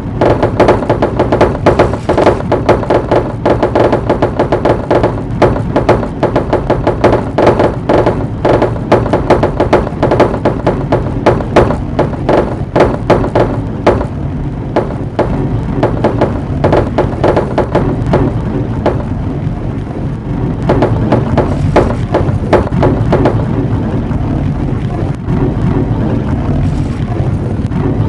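Marbles rolling and clacking along a marble run: a dense, irregular stream of sharp clicks over a steady rolling rumble. The clicks thin out about halfway through while the rumble carries on.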